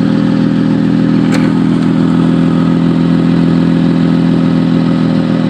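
Car engine idling steadily with a loud, motorcycle-like exhaust note. It is the sound of a broken exhaust resonator, which the owner has traced as the fault after the seller suggested the catalytic converter.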